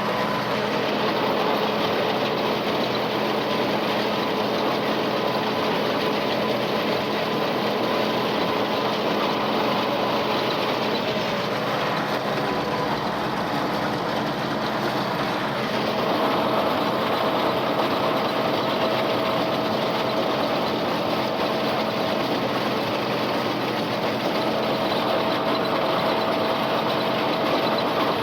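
Tractor running steadily while pulling a Krone KR 130 round baler at work, a constant machinery drone with a change in tone a little past halfway.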